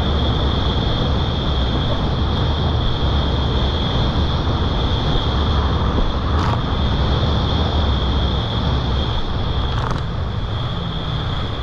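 Jet ski running at speed over choppy sea: a steady low engine drone with a constant high whine, under the hiss of spray and wind on the microphone. Two short splashes as the hull hits waves, about six and ten seconds in.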